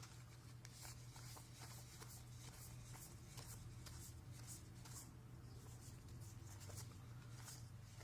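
Very faint rustling and soft ticks of Magic: The Gathering cards being slid and flipped through by hand, over a low steady hum.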